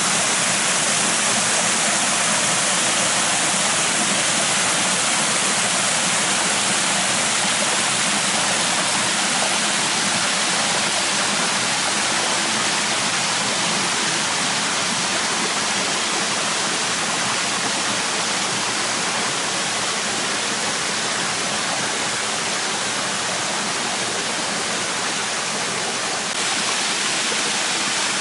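Waterfall: a steady, full rush of falling water, with a slight step in level about 26 seconds in.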